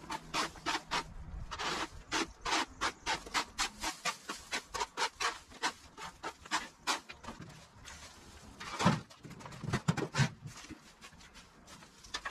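Rake scraping over a concrete slab, quick repeated strokes about three a second, clearing moss and grass clippings. A few louder knocks follow about nine to ten seconds in.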